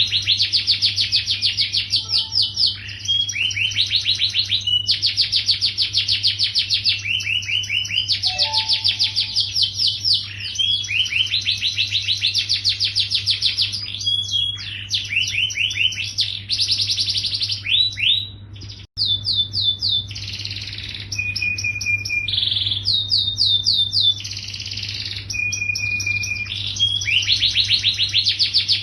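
Domestic canary singing vigorously in long, fast trills and rolls of rapidly repeated notes, with a few held whistled notes between them. A steady low hum runs underneath, and the song cuts out for an instant about two-thirds of the way through.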